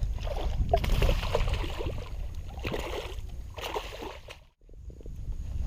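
Wind rumbling on the microphone and water sloshing around a small fishing skiff, breaking off briefly about four and a half seconds in.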